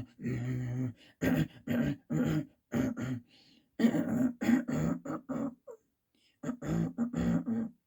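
A man coughing over and over: a dozen or so short, forced coughs in quick runs, with two brief pauses, acting out two people trying to cough over each other.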